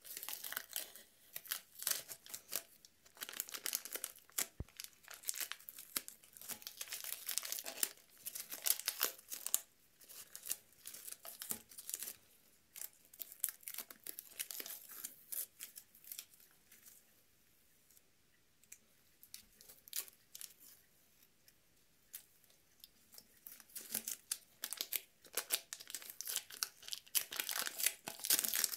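Masking tape and paper masking being peeled off a freshly spray-painted plastic model ship hull: crackly tearing and crinkling in irregular spurts, with a quieter stretch past the middle.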